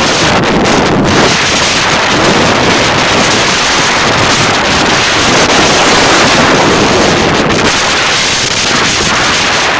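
Strong wind buffeting the microphone in a loud, continuous rush, with heavy waves breaking on the shore underneath.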